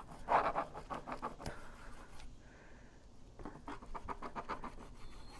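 A long slicing knife sawing through a rack of smoked beef back ribs on a plastic cutting board: two runs of quick scraping strokes, about six a second, with a pause of about a second between them.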